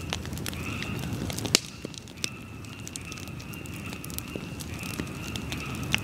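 Bonfire of stacked wood burning: sharp crackles and pops over a low, steady rumble of flames, with the loudest pop about one and a half seconds in. Frogs call steadily in the background.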